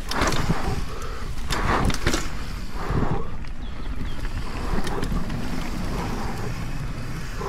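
Propain Spindrift aluminium enduro mountain bike riding down a natural forest trail: tyres running over dirt and roots and the bike rattling, with wind on the microphone. There are several louder rattling surges in the first three seconds.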